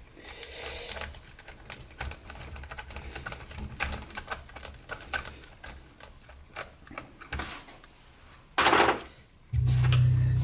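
Small screws and plastic parts of an RC car's differential housing clicking and tapping as they are unscrewed and handled, in many light, irregular ticks. A short louder rustle comes near the end, then a steady low hum starts.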